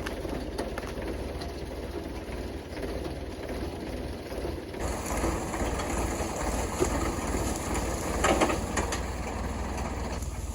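An engine running steadily with a low, even rumble, with clanks and knocks over it that grow louder about halfway through and cluster near the end.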